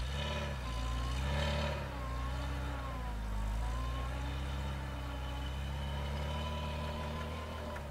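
UAZ Patriot SUV engine revving up and down under load as it pushes through deep snow ruts up a slope, then running at a steadier pull. A thin whine rises and falls along with the engine note.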